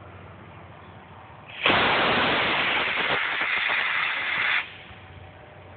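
Model rocket motor firing at launch: a sudden loud hiss that starts about a second and a half in, holds steady for about three seconds, then cuts off.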